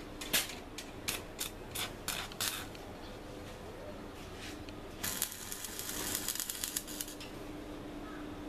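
Stick welding arc on steel rebar: a few short, sharp crackles in the first couple of seconds as the electrode is struck and the arc catches and breaks, then about five seconds in a steady crackling sizzle of the running arc for about three seconds.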